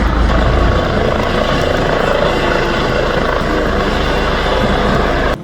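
Police helicopter hovering close by, with steady loud rotor and engine noise; it cuts off suddenly near the end.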